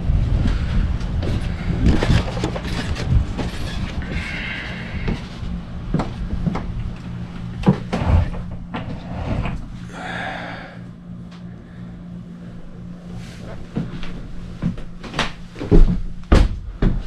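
Irregular knocks and clunks of people moving about a moored motorboat and searching it, over a steady low hum. The loudest knocks come near the end.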